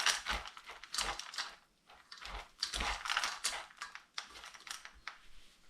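Dry dog kibble being crunched up and mixed in with the fish: a run of irregular crackling clicks that thin out near the end.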